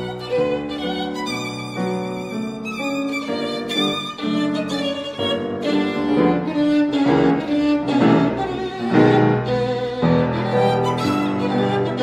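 Violin playing a melody of held and changing notes, with lower notes sounding beneath it.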